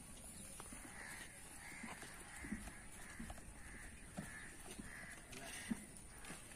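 Faint sounds of ostriches feeding from a trough of chopped green fodder, with a few sharp knocks of beaks against the trough, the loudest near the end. A steady run of bird calls, about two a second, carries on behind.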